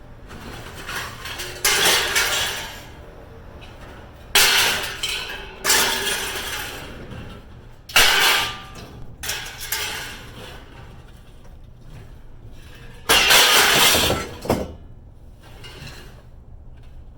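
Pieces of scrap being tossed and dropped among other junk, with five loud crashing clangs that ring on briefly. The longest crash comes near the end.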